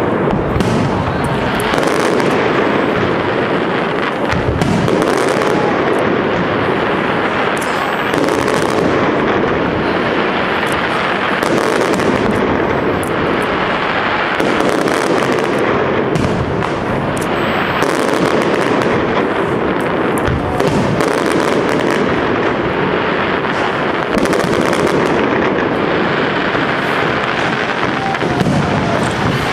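Aerial fireworks display: a dense, continuous barrage of shell bursts, the bangs following one another with no pause.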